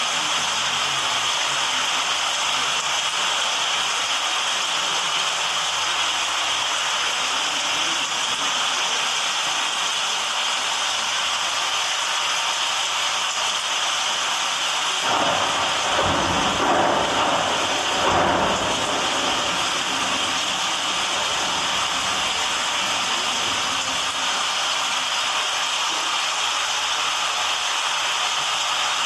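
A contemporary string quartet producing a steady, rain-like hiss of bowed noise. About halfway through it swells with a deeper rumble for a few seconds.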